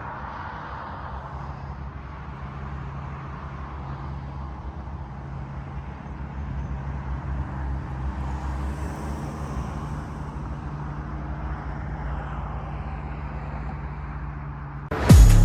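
Steady low drone of a car on the move, engine hum and road noise. Loud electronic music cuts in just before the end.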